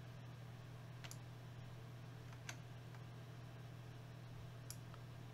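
Three sharp computer mouse clicks, a second or two apart, over a steady low hum.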